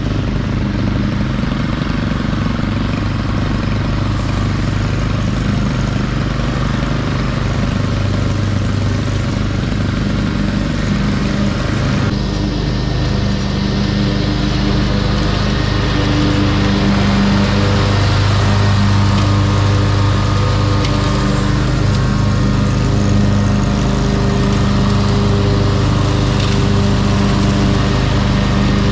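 Zero-turn riding mower's engine running steadily under mowing load. The sound changes abruptly about twelve seconds in and grows louder in the second half as the mower comes close.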